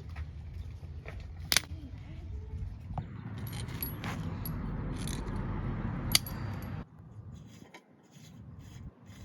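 Metal hand tools and parts clinking and scraping, with a couple of sharp metallic clinks. The scraping stops abruptly about seven seconds in.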